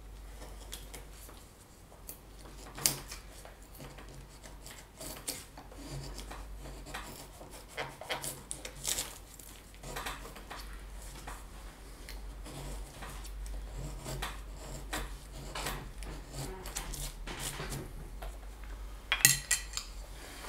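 Carving knife cutting into wood: irregular short scraping and clicking strokes as shavings are pared off, with a sharper cluster of clicks near the end.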